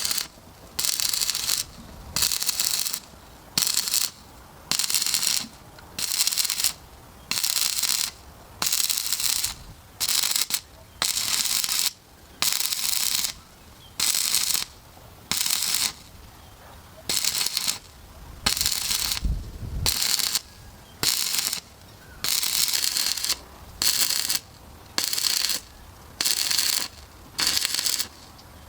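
Electric welding arc crackling in short bursts, each lasting under a second and starting and stopping roughly once a second, as the arc is struck and broken over and over.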